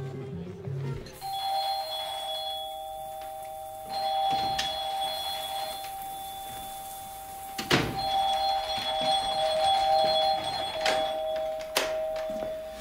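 Electric apartment doorbell held down in long, steady rings, two tones sounding together: one ring of about six seconds, then a short break with a thump, then a second ring of about five seconds. The bell is being pressed insistently and without let-up.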